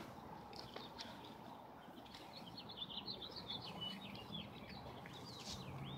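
Faint bird chirping: a quick run of short, high chirps over a faint background hiss, starting a little past the middle.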